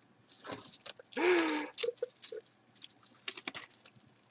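Packaging being handled: short crinkling and scraping rustles, with a brief low grunt about a second in.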